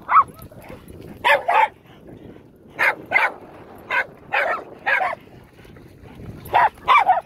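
Dog barking excitedly during a game of fetch: about a dozen short, sharp barks, mostly in quick pairs, with pauses of a second or so between them.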